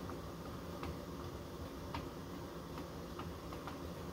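Faint, irregular clicks from the router table's bit-height adjustment as the bit is lowered, about five over four seconds, over a low steady hum.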